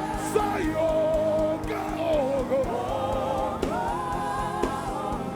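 Live gospel worship music: a voice sings a long, wavering, ornamented line over sustained chords and a steady low beat.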